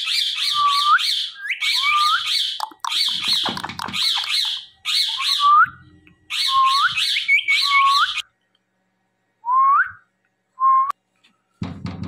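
Indian ringneck parakeet calling: runs of shrill, repeated squawks, about four a second, in several bursts with short pauses between them, then two short single calls.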